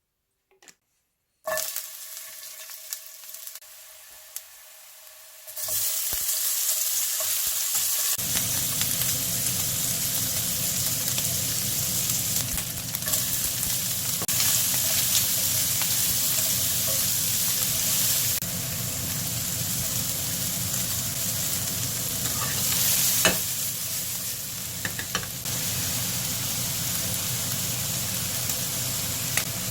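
Food frying and sizzling in a pan as it is stirred. The sizzle starts about a second and a half in, grows much louder a few seconds later, and runs on steadily with a few light clicks of the utensil against the pan.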